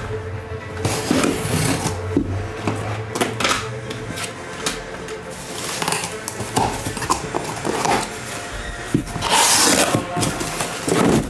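Cardboard shipping case being handled and opened: taps, scrapes and rustles of the box and its flaps, with a longer, louder scraping rustle about nine seconds in as the case comes open.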